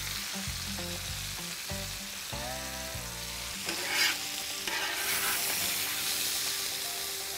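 Duck meat and vegetables sizzling on a hot flat-top griddle as a pan of vegetables is scraped onto it with a spatula. There is a short louder burst about four seconds in, and the sizzle grows brighter after that.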